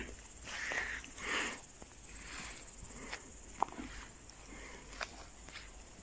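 Footsteps through forest undergrowth, with branches swishing against clothing and a backpack and a few sharp clicks of twigs.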